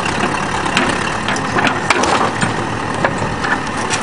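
A backhoe's engine runs steadily while its bucket crushes a van's body, giving several sharp metal crunches and clanks.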